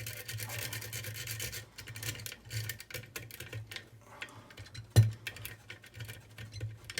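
Metal lock picks scraping and clicking against the pins inside an ERA rim cylinder lock. The scraping is dense at first, then thins to scattered ticks, with one sharp knock about five seconds in.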